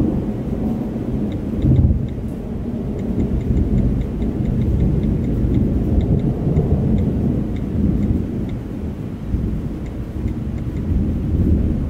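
Thunder rumbling low and continuously during a thunderstorm. A faint quick ticking runs above it through the middle of the stretch.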